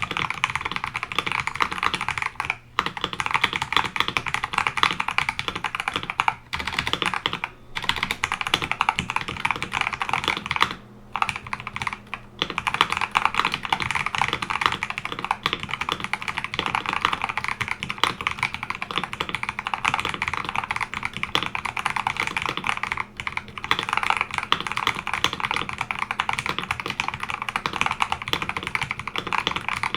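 Steady fast typing on an Akko 5075S mechanical keyboard with Akko sponge switches lubed with Krytox 205g0 and a polycarbonate plate: a dense run of key clacks. It breaks off for a moment a few times, longest about eleven seconds in.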